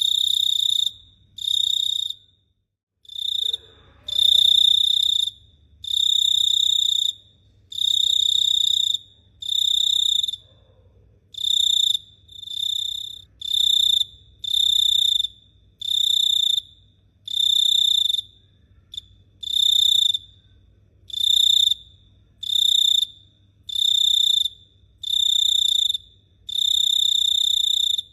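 A cricket chirping in an even, repeating pattern of high-pitched trills, each about a second long with short pauses between, with a brief break about two and a half seconds in.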